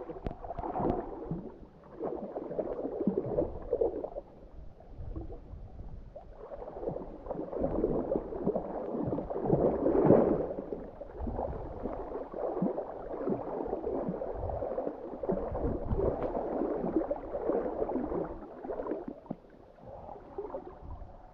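Water splashing and sloshing as a Weimaraner wades through a shallow river, coming in uneven surges and loudest about halfway through.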